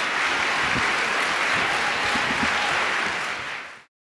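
Audience applauding, steady until it cuts off abruptly near the end.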